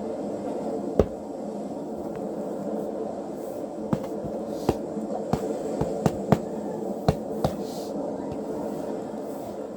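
A steady background hum with a few sharp clicks and taps scattered through the middle, the loudest about a second in.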